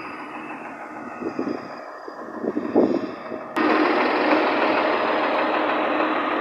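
Steady machinery noise, with a few short knocks about two to three seconds in, then jumping abruptly louder about halfway through and holding there.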